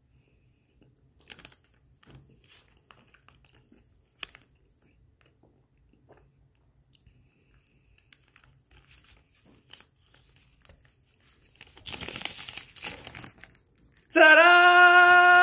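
Plastic wrapper of a Nestlé Toll House cookie dough package crinkling as it is handled, after a few faint clicks. Near the end a loud held pitched note lasts about a second and a half, cutting off sharply.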